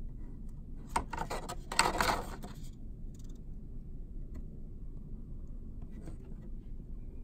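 Printed cardboard gift box and greeting card being handled: a burst of rustling and scraping about a second in that lasts under two seconds, then only a few faint clicks.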